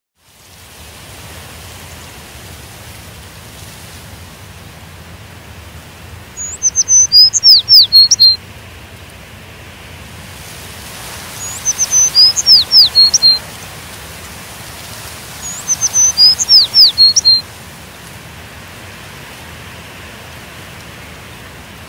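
A songbird singing three short phrases about four seconds apart, each a quick run of high notes that droop downward in pitch, over a steady background hiss.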